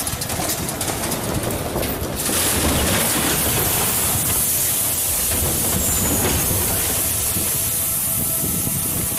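Truck and rocks tumbling down a rocky slope: a continuous rumble and clatter of sliding rubble and crashing metal, growing louder about two seconds in.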